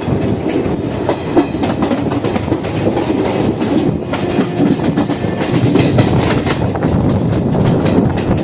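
Passenger train running along the track, a steady rumble with the wheels clacking over rail joints; the clacks come more often in the second half.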